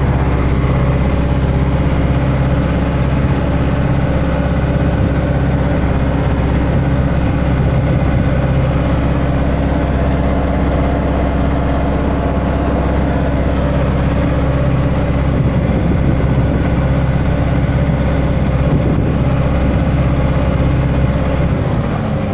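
Landini Blizzard 95 tractor's diesel engine running steadily under load while pulling a furrow press. Near the end the engine note drops.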